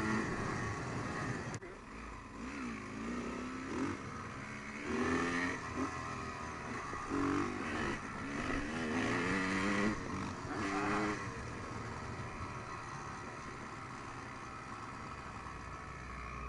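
Dirt bike engines running and revving, the pitch rising and falling in several spells over the first eleven seconds, then settling into steadier, quieter running. A sharp click comes about one and a half seconds in.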